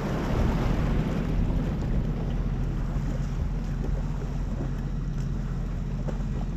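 Race hydroplane's engine running steadily at low throttle as the boat idles along, with water washing at the hull and wind buffeting the microphone.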